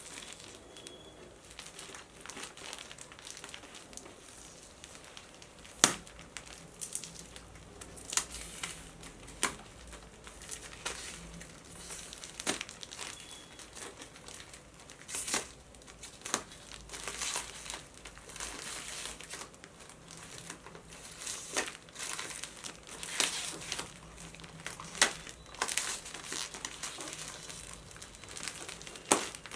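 A packaged bedsheet being handled and unwrapped: its packaging rustles, with irregular sharp crackles and crinkles throughout.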